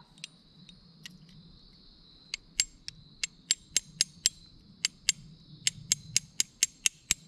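Small hammer tapping a 1/16-inch pin punch to drive the ejector retaining pin home in an AR-10 bolt: a few faint taps, then about twenty sharp taps, roughly three a second, starting a little past two seconds in.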